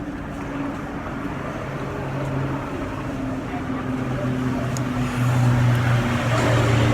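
An engine running with a steady low hum over background noise, growing louder in the last couple of seconds.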